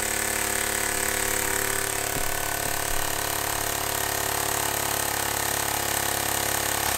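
Small 3D-printed compressed-air piston engine running steadily at constant speed and spinning a propeller, with a dense even buzz under a strong hiss of escaping air.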